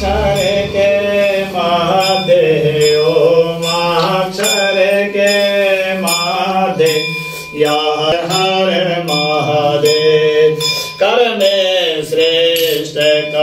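A man chanting a Sanskrit Shiva mantra in a long, sing-song melodic line, with light regular ticks about twice a second behind it.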